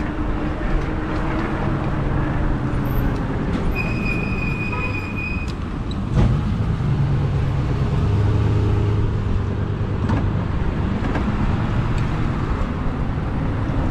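Road and traffic noise heard while riding an e-bike in street traffic: a steady low rumble and hum of vehicles. A high, steady squeal sounds for about two seconds, around four seconds in.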